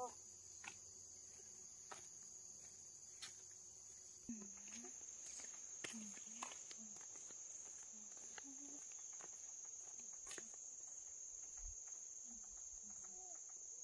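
Insects chirring in a faint, steady, unbroken high note, with scattered faint clicks and taps and some faint short low sounds in the second half.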